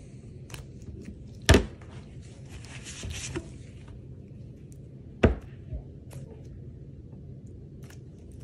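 Wire soap cutter slicing a loaf of cold-process soap on a wooden cutting box: two sharp knocks of the cutter and soap against the wood, about a second and a half in and again after five seconds, with a soft scraping hiss of the wire passing through the soap between them.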